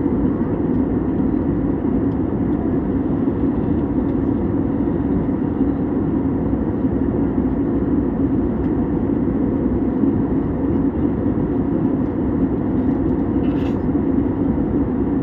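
Aeroplane's steady drone, a constant low noise that neither rises nor falls.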